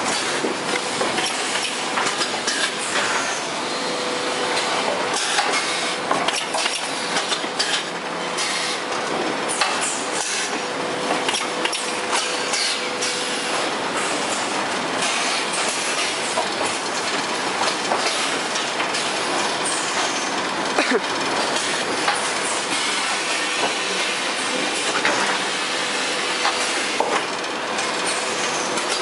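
Automatic carton packaging line running: conveyors and machinery making a steady clatter with frequent clicks and knocks, over a faint hum that comes and goes.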